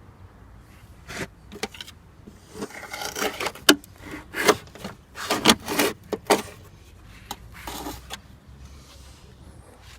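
Packed sand and grit being scraped and knocked out of a rusted car rocker panel (Honda Integra sill) through a hole. The sound comes as irregular scraping and rustling against sheet metal with a few sharp clicks, busiest in the middle.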